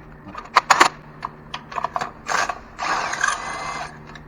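Socket ratchet clicking while loosening spark plugs: a few sharp clicks just over half a second in, then two runs of quick ratcheting, the second lasting about a second.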